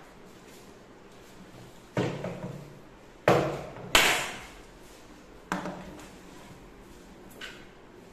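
About five sharp knocks on a wooden tabletop, the two loudest close together a few seconds in, each with a short ringing tail: a small plastic water bottle being flipped and landing on the table.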